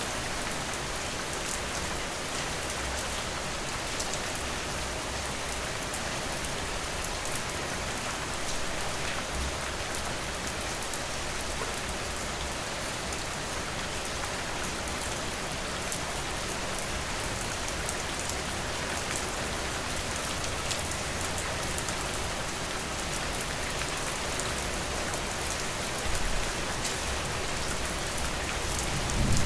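Steady rain falling, an even hiss with scattered drop ticks. A low rumble swells near the end.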